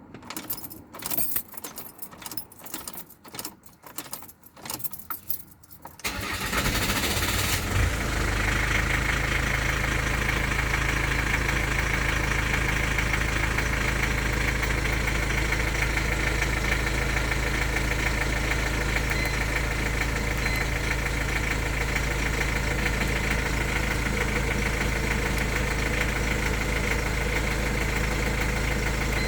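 A few scattered clicks and knocks, then the Jaguar X-Type's 2.0 four-cylinder turbodiesel turns over about six seconds in, catches, and settles into a steady diesel idle.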